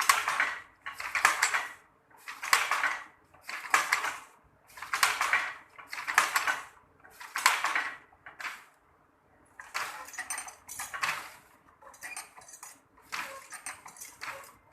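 Traditional hand-operated wooden loom weaving sarong cloth, clattering in a steady rhythm of about one stroke every 1.3 seconds as the shuttle and beater work. After a short pause about nine seconds in, the clatter comes back lighter and less regular.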